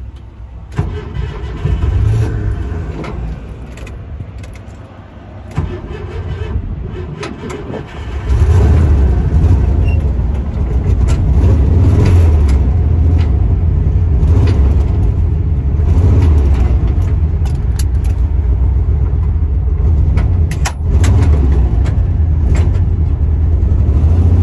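An old Volkswagen's engine heard from inside the cabin. It runs quietly with a few clicks and knocks, then about eight seconds in gets much louder and settles into a steady low drone as the car pulls away under power. The engine is being tested for suspected vapor lock after its fuel pump was cooled with water.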